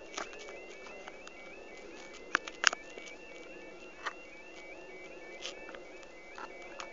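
Level crossing warning alarm sounding a steady, repeating electronic warble of about three cycles a second. A few sharp taps sound over it, the loudest about two and a half seconds in.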